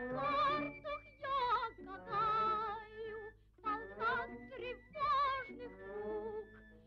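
A high woman's voice singing operatically in short phrases with a wide, wavering vibrato, breaking off between phrases.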